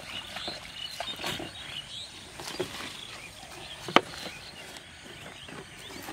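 Scattered small knocks and rustles of handling, with one sharp click about four seconds in as a plastic bottle is handled on the grass. Faint high chirps in the first second.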